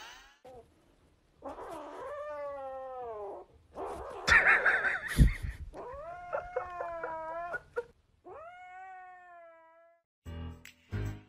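A cat yowling: four long, drawn-out meows, each bending in pitch. The second is louder and harsher, with a thump near its end. Music comes back in near the end.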